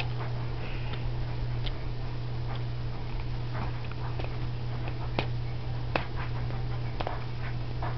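A chihuahua puppy rummaging in a purse: scattered light clicks and short rustles at irregular intervals over a steady low hum.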